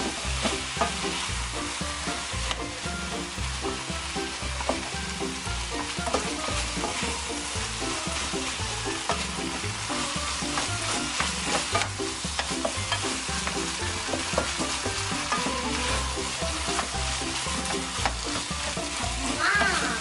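Kimchi fried rice with thin-sliced pork belly sizzling in a nonstick frying pan as it is stirred and tossed with a spatula, the freshly added cold rice being fried into the sauce.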